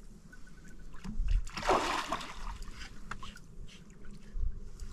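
Water splashing and sloshing in irregular bursts, with small knocks; the loudest splashing comes about a second and a half in.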